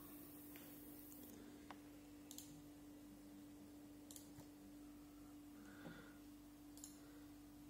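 A few faint, sharp computer mouse clicks at irregular intervals over a steady low hum, close to silence.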